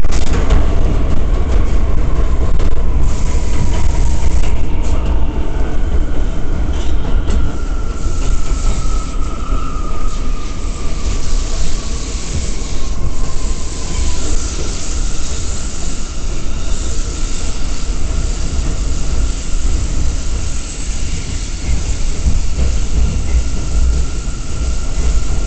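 R179 subway train running on the rails, heard from inside the car: a loud, steady rumble. Two whining tones glide down in pitch in the first half, and a steady high whine holds from about halfway on.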